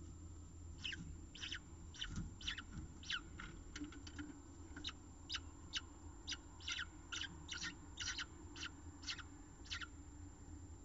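Downy peregrine falcon chicks giving short, high-pitched begging calls, about two a second, starting about a second in.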